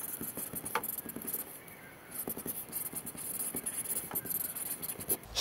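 Felt-tip marker writing on a whiteboard: a run of short squeaks and scratches from the tip, one for each stroke of the letters.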